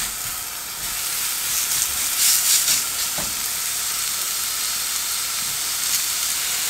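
Spice-rubbed skirt steaks sizzling on a smoking-hot ridged cast-iron grill pan, a steady high hiss. It swells into a louder burst about two seconds in as the second steak goes down on the pan, with a small knock shortly after.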